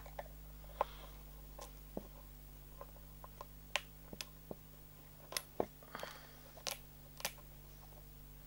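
Irregular small clicks and taps of a hex driver and plastic and metal RC car chassis parts being handled as a stubborn part is worked into place, over a faint steady low hum.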